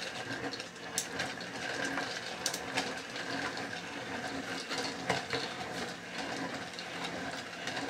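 Small battery-powered motor and plastic gearbox of a 3D-printed claw-foot walking toy robot running, a steady whirr with rapid clicking of the gears and walking mechanism, with a few louder ticks.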